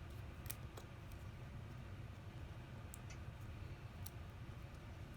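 A few faint, sharp clicks of small repair tools and tiny screws handled on an iPhone SE being taken apart, spread out over a low steady hum.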